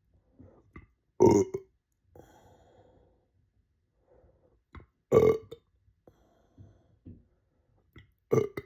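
A person burping loudly three times, roughly every three to four seconds, with faint low sounds in between.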